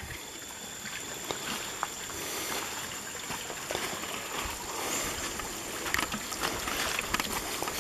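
Scattered footsteps on stones and leaf litter over a steady haze of trickling water, with a thin, steady high-pitched whine throughout.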